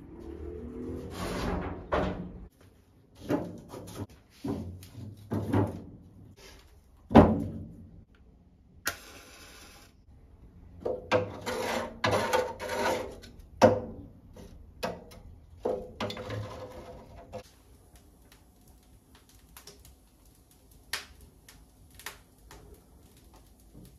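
Irregular knocks, thuds and clatters of objects being handled and set down, busy in the first half and sparse later, with a short hiss about nine seconds in.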